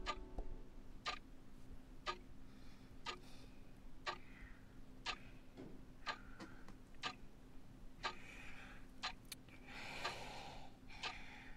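Quiet clock ticking about once a second, over a low steady hum, with a few faint soft rustles in between.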